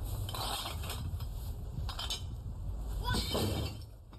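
Garbage bags being picked up and handled: a few short bursts of rustling and clinking over a steady low rumble.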